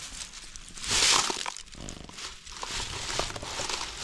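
Rustling and crinkling of handled material, with a loud rustle about a second in followed by small crackles and clicks.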